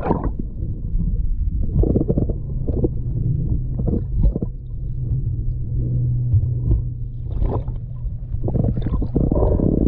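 Underwater recording of a swimmer finning at the surface: muffled water sloshing and bubbling in uneven bursts, with a low steady hum for a few seconds in the middle.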